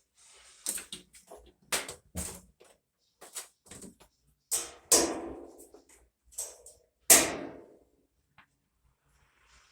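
Irregular knocks and clanks from washing machine parts and tools being handled during repair. The loudest, near five and seven seconds in, ring on briefly.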